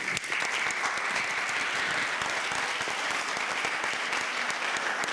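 Audience applauding: many people clapping, dense and steady.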